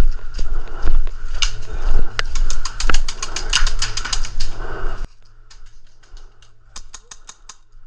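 Airsoft gun fire: a run of sharp clicking shots at roughly ten a second, from about two seconds in to nearly five, over a low rumble of movement. The rumble and shots cut off suddenly about five seconds in, leaving a few scattered clicks.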